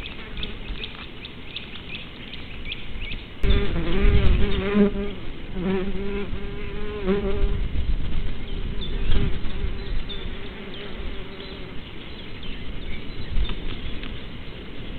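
A flying insect buzzing close to the microphone. The buzz starts suddenly about three and a half seconds in, its pitch wavering as it moves, and fades out after about seven seconds. Short high chirps repeat during the first few seconds.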